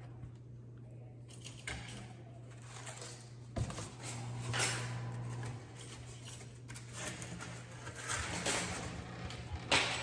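Plastic trash bag rustling and metal fireplace fittings scraping and clinking as they are handled at the fireplace opening, in scattered short bursts over a steady low hum. The sharpest knocks come about three and a half seconds in and just before the end.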